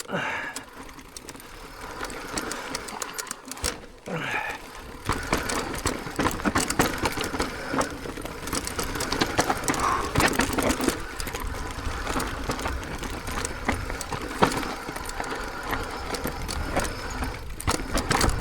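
Mountain e-bike clattering down a rough, rutted rocky trail: tyres and bike rattling over stones as dense rapid ticks and knocks, getting louder about five seconds in over a low rumble.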